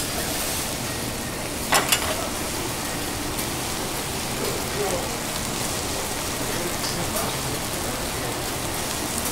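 Food sizzling on a teppanyaki griddle: a steady, even hiss, with two sharp clacks about two seconds in.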